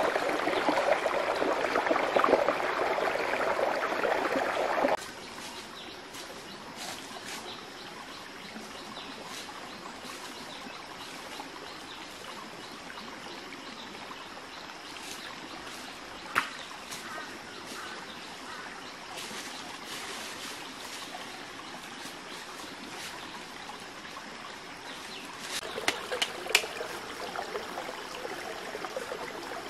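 Shallow rocky forest stream trickling and splashing, loud for about the first five seconds and then cutting off suddenly to a much quieter steady background. Scattered light clicks and crunches follow, with one sharp click about halfway through and a cluster of them near the end.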